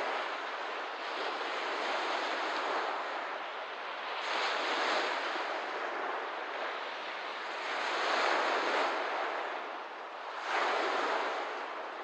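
Small waves washing onto a lakeshore, the wash swelling and falling back every few seconds, with the loudest surges about four, eight and ten and a half seconds in.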